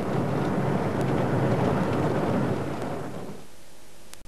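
A steady low rumbling noise, fading out about three seconds in and leaving a faint hiss.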